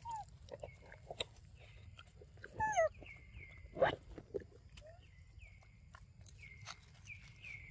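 Macaque calls: a short squeal falling in pitch about two and a half seconds in, then a louder, lower call about a second later. Behind them a high, short falling chirp repeats a little more than once a second.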